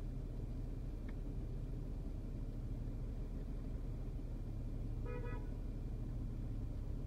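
Steady low rumble of a car's engine and cabin, heard from inside the car in slow traffic, with one short car-horn beep about five seconds in.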